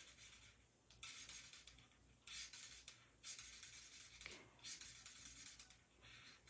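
Faint scratching of a Stampin' Blends alcohol marker colouring on paper, in a series of short strokes of about a second each.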